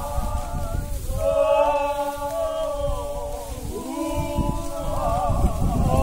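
Several voices chanting together in long, held, wavering notes, pausing briefly about a second in and shifting to a new pitch about four seconds in.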